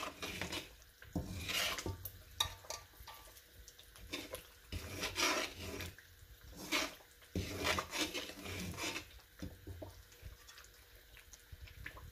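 Spatula scraping and stirring semolina frying in oil in a stainless-steel karahi, in a series of short, uneven strokes.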